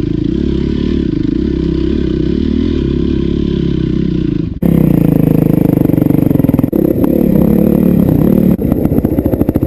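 Dirt bike engine running. About halfway through, the sound cuts abruptly to a louder stretch in which the engine's rapid firing pulses come through plainly.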